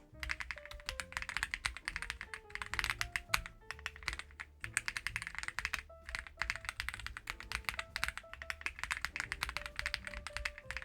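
Fast, continuous typing on a Reborn67 gasket-mounted mechanical keyboard: a quick, dense run of clacky keystrokes with short pauses between bursts.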